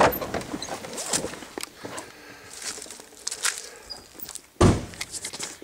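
Footsteps crunching on dry leaf litter and sandy ground, with a loud, heavy thump about four and a half seconds in.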